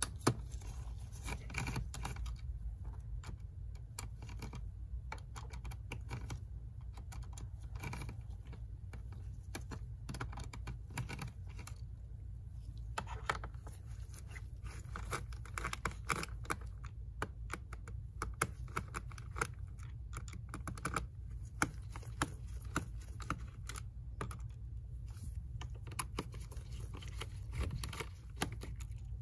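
Irregular small clicks and taps of a screwdriver and gloved hands working screws out of a laptop's plastic bottom case, over a steady low hum.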